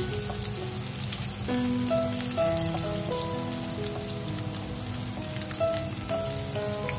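Diced onion sizzling and crackling in oil in a frying pan, under background music with a simple melody of held notes.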